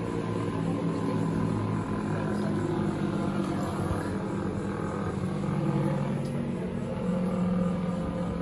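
A steady low mechanical hum made of several held tones, which shift in pitch a couple of times.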